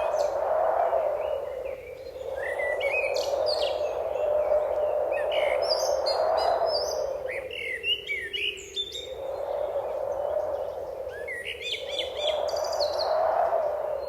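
Many birds chirping and trilling in quick, high calls over a rushing background noise that swells and fades every few seconds.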